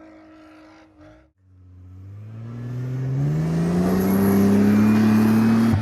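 Off-road 4x4's engine revving up under load as it drives at a sand dune, its note rising steadily in pitch and growing louder over about four seconds. A faint steady hum comes before it and drops out briefly about a second in.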